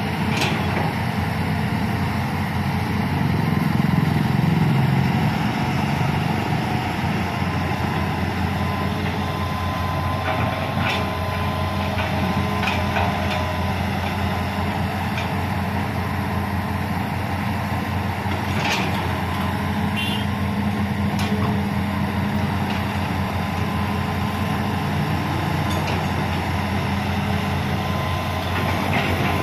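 Hitachi Zaxis hydraulic excavator's diesel engine running steadily under digging load, swelling a little about four seconds in. A few short sharp knocks come through, the bucket working soil and stones in the ditch.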